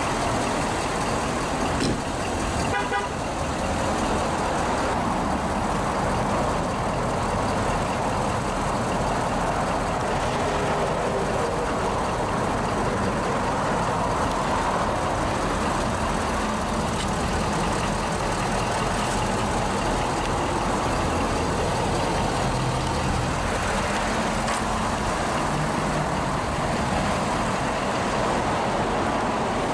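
Steady road traffic noise from passing vehicles, with a short rapid run of beeps about three seconds in.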